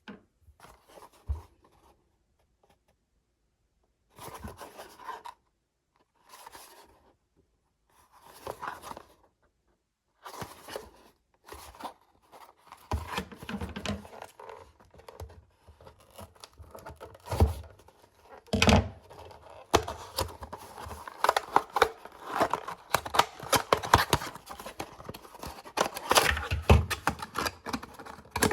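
Product packaging being opened and handled by hand: tearing, scratching and crinkling. The sounds come in a few short separate bursts at first, then turn into continuous rustling and handling with a couple of sharp knocks.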